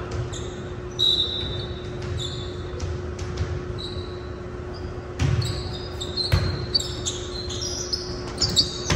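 Sneakers squeaking on a hardwood gym floor during a volleyball game, with a volleyball struck sharply a little past five seconds in and again about a second later. A steady low hum runs underneath.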